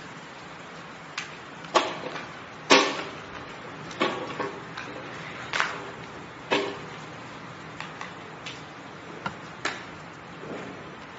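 Metal weight plates knocking and clanking as they are handled and set down one at a time to be weighed: about ten irregular knocks, some ringing briefly, the loudest nearly three seconds in.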